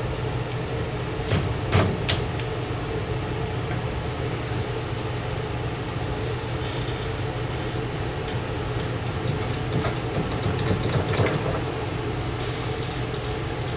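Light metal clinks and knocks as a steering knuckle is worked onto a heavy-duty ball joint stud, a few sharp ones early on and a run of lighter ticks near the end, over a steady low hum.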